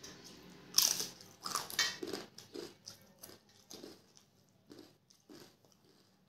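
A crisp papad bitten with a loud crunch about a second in, then chewed with a run of crunches that grow fainter.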